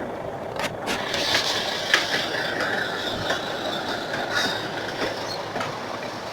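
Street and construction-site ambience: a steady rush of noise with scattered sharp clanks and knocks, the loudest about two seconds in.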